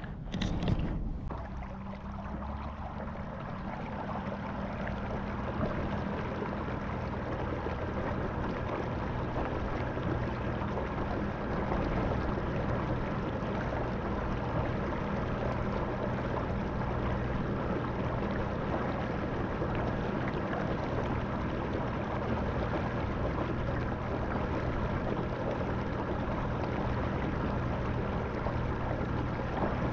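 A motorized fishing kayak under way: a steady motor hum with water rushing past the hull, building over the first few seconds and then holding steady. A brief knock comes right at the start.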